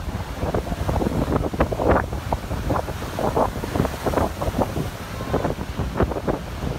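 Strong wind buffeting the microphone in irregular gusts, over the rush of heavy surf breaking on the beach.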